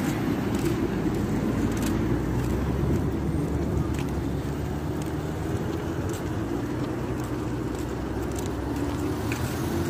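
Road traffic: cars driving past on a street, a steady low rumble.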